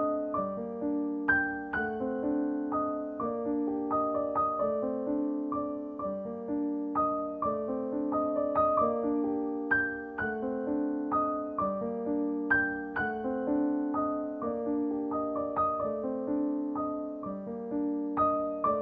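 Background piano music: an unhurried, steady run of single struck notes over held chords.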